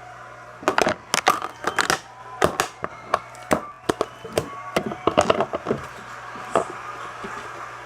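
Plastic containers and lids being handled, giving many irregular sharp clicks and knocks, thickest in the middle and tailing off with a last knock near the end.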